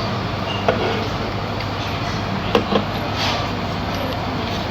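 Steady rumbling background noise with three short knocks or clinks: one about a second in and two close together about halfway through.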